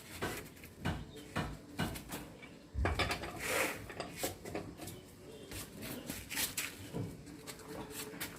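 Irregular metallic clinks and knocks of a wheel spanner working on the wheel nuts, as a refitted car wheel gets its final tightening.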